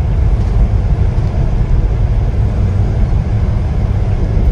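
Volvo sleeper bus travelling along the road: a steady low rumble of engine and road noise heard from inside the cabin.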